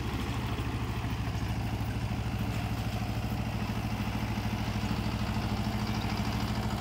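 Sonalika tractor's diesel engine running steadily under load while it drives a 5-foot Fieldking rotavator tilling through tall grass, with a fast, even engine pulse.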